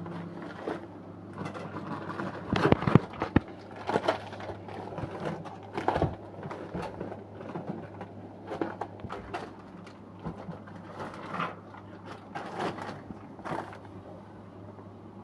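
Irregular clicks and knocks, like objects being handled or set down, over a steady low hum.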